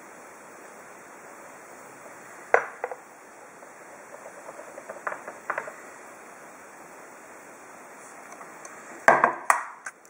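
Clinks and knocks of a stainless steel milk pitcher against a cup and a stone countertop, with a cluster of louder knocks near the end as the pitcher is set down on the counter. A low steady hiss runs underneath.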